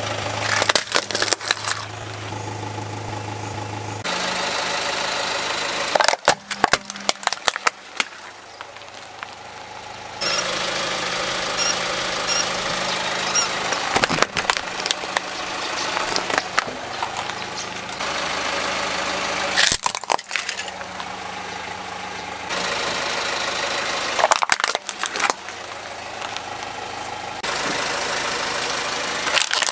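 A car's tyre slowly rolling over and crushing plastic toys, with several short bursts of cracking and crunching over the car's engine running at idle. The sound cuts abruptly between short clips every few seconds.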